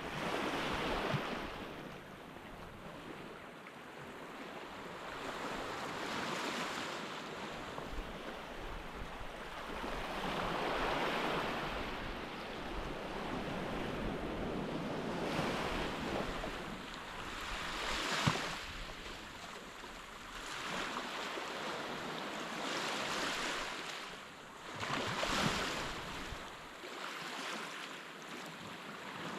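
Surf on a beach: waves breaking and washing up the sand, swelling and fading every few seconds, with a light rush of wind.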